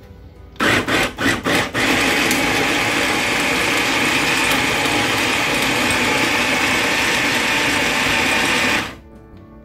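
Small electric food chopper running, chopping onion and bell peppers: four quick pulses, then a steady run of about seven seconds that cuts off abruptly near the end.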